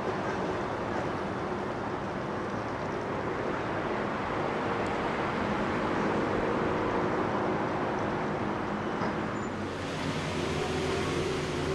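Engines running steadily over a constant wash of outdoor noise, with a low hum underneath; it gets a little brighter near the end.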